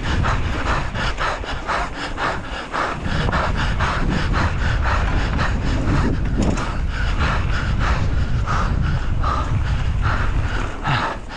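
A mountain biker's fast, rhythmic, hard panting while sprinting a race run, over a steady low rumble of wind on the microphone and tyres on a dirt track.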